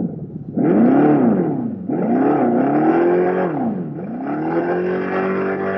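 2024 Dodge Charger Daytona EV's Fratzonic Chambered Exhaust, the synthetic engine note played through speakers, revved three times: the pitch climbs and falls back twice, then climbs again and holds high near the end.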